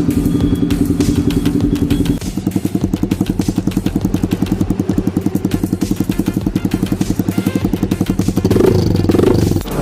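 Yamaha R15 V4's single-cylinder exhaust idling in a fast, even putt of about ten beats a second, with a short rev near the end.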